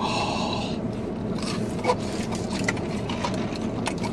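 Steady low hum of a car cabin, with scattered small crunches and clicks of someone chewing a fried egg roll. A short breathy hiss comes in the first second.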